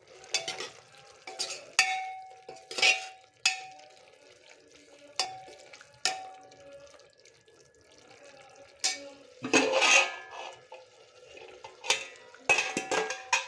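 A metal utensil knocking and clanking against metal cooking pots, a series of sharp clinks, several leaving a brief metallic ring, with a longer clatter about ten seconds in.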